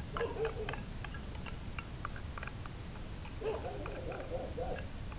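Cats eating dry food: kibble crunching in quick, irregular clicks. A cat meows briefly just after the start and again with a longer, wavering meow in the second half.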